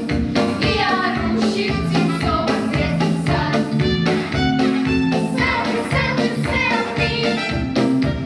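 A song with a steady beat, sung by a group of voices over a backing track.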